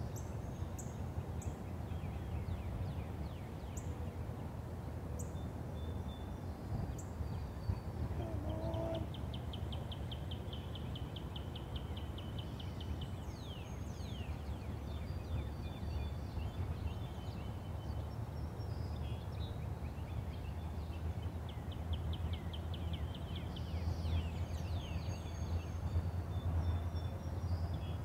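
Songbirds calling by a river: a rapid high trill that comes twice, scattered short chirps and one lower call about nine seconds in, over a steady low rumble.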